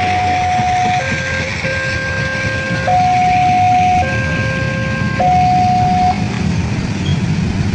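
Railway level-crossing warning siren sounding a two-note electronic tone, switching between a higher and a lower pitch about every second, over steady traffic noise.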